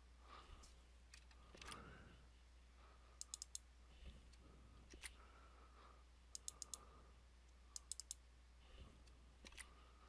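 Quiet computer mouse and keyboard clicks in small clusters of two to four, a few seconds apart, as text in a form is selected, double-clicked and pasted, over a faint steady low hum.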